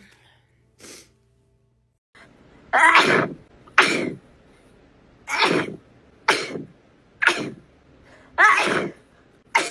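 A fit of repeated sneezes during an allergic reaction: a small one about a second in, then six or seven loud sneezes in quick succession, about one a second, each falling in pitch.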